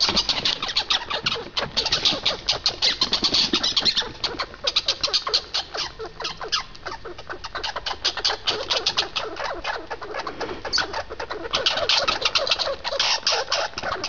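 American red squirrels chattering: a fast, rattling run of calls typical of squirrels scolding each other over food. It eases off in the middle and grows loud again near the end.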